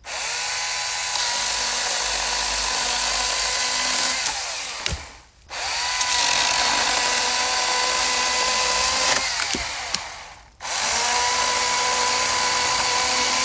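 Husqvarna 350i battery chainsaw's electric motor and chain running in regular (non-boost) mode while cutting a dead limb. Three trigger pulls: each time it spins up quickly to a steady whine, runs for about four or five seconds, then winds down.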